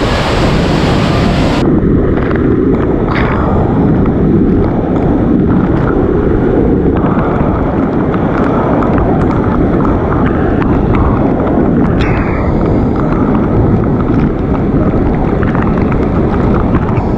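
Loud, steady rushing roar of falling water, with wind buffeting the camera microphone; the hiss at the top end turns duller about a second and a half in.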